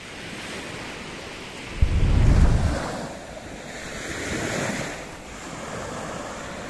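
Small waves breaking and washing up a sandy beach in a steady wash of surf, swelling again about four seconds in. About two seconds in, a gust of wind buffets the microphone with a low rumble, the loudest sound.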